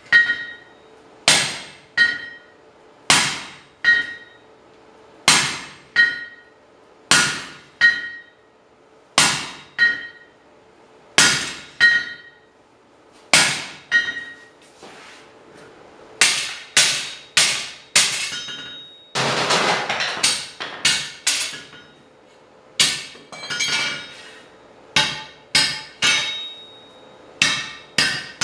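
Hand hammer blows on hot plate steel over an anvil, each strike ringing. The hammer lands a heavy blow about every two seconds, each followed by a lighter tap. Past the halfway point the blows come quicker and less even, with a second of rough scraping noise.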